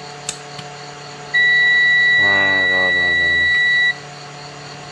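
Multimeter's continuity buzzer giving one steady high beep lasting about two and a half seconds as the probes bridge the outlet switch's contacts, showing a closed circuit. A short click of the probes comes just before it.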